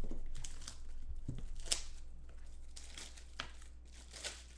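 Clear plastic shrink-wrap being torn and crinkled off a sealed trading-card box: a run of irregular crackles with two sharper snaps.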